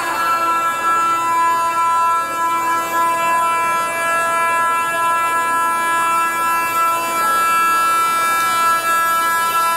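Music: a long chord held at a steady pitch on a reedy-sounding instrument, with part of it dropping out about seven seconds in.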